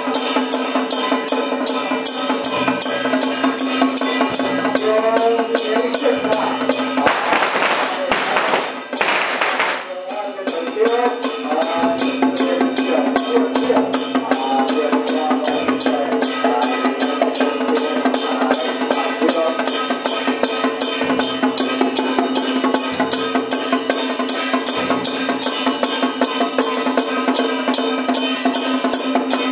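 Temple-procession drums and gongs beaten in a fast, steady rhythm over a continuous ringing tone. About seven seconds in, a loud burst of noise lasts for roughly three seconds.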